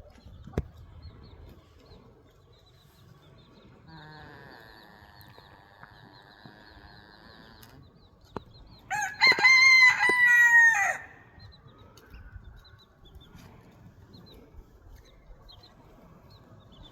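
A rooster crows once, about nine seconds in, in a loud, high call lasting about two seconds. Quiet background otherwise, with a faint steady sound earlier on and a single click near the start.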